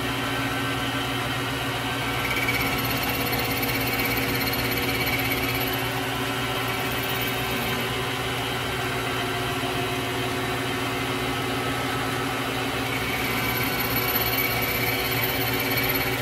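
Vevor MX400 mini metal lathe running steadily with an even motor hum and whine while facing off aluminum stock.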